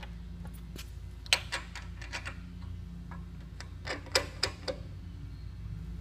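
Sharp metal clicks and clacks, about eight of them scattered over a few seconds, as the parts of a quick-opening pipeline closure are worked by hand, over a steady low hum.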